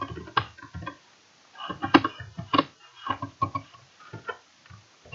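Computer keyboard being typed on: separate key clicks at an uneven pace, a few a second.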